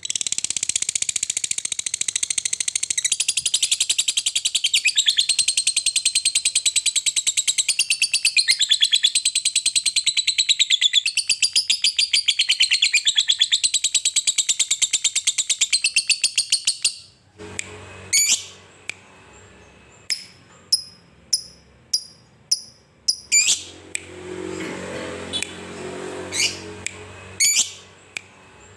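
Lovebird singing a long ngekek: an unbroken, very rapid, high chattering trill for about seventeen seconds that then breaks off into separate sharp chirps, several falling in pitch.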